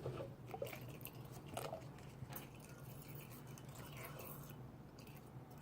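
Clear glue being stirred quickly in a bowl with a mixing utensil: faint, irregular soft sticky clicks and squishes.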